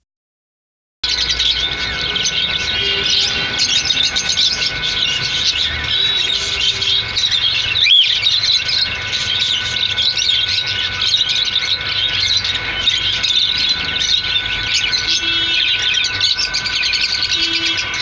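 Many caged cockatiels and other small parrots chirping and chattering together in a dense, continuous chorus. It starts about a second in, after silence, and one louder rising call stands out about halfway through.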